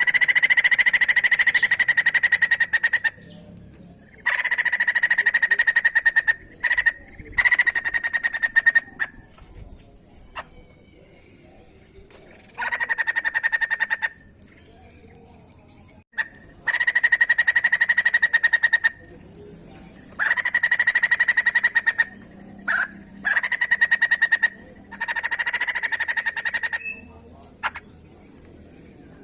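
White-crested laughingthrush (poksay jambul) calling in bursts of one to three seconds, each a fast string of rapidly repeated notes, with short pauses between bursts.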